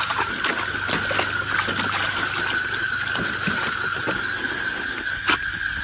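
Garden hose jet hissing and splashing into a plastic kiddie pool as a dog snaps and splashes at the stream, with a steady high-pitched tone running under the hiss. There is a sharper splash or snap a little after five seconds in.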